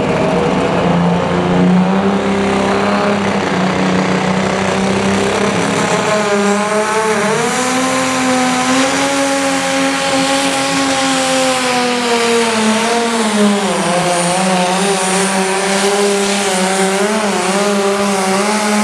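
Pro stock pulling tractor's turbocharged diesel engine at full throttle, hauling the weight-transfer sled down the track. Its pitch climbs about six seconds in, dips sharply around the middle of the pull, then recovers and holds steady to the end of the run.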